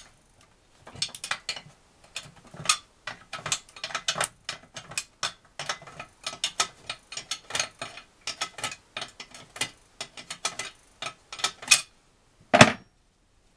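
Hand ratchet wrench clicking in quick bursts as it is swung back and forth to undo a bolt on a motorcycle engine. Near the end comes a single louder metal clank.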